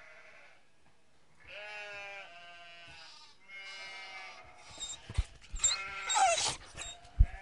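Sheep bleating several times, with a louder cluster of calls late on and a few sharp knocks near the end.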